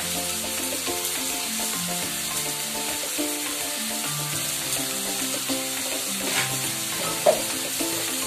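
Cubed eggplant sizzling as it fries in oil in a kadai, with a steady hiss. Background music with stepping melody notes plays over it, and there is one sharp clink about seven seconds in.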